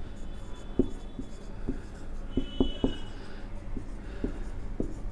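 Felt-tip marker writing on a whiteboard: irregular light taps and strokes of the tip on the board, with a brief squeak about two and a half seconds in.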